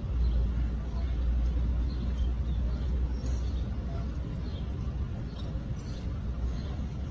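Outdoor background with a steady low rumble, a faint hum of the crowd and a few faint high chirps; no club strikes the ball.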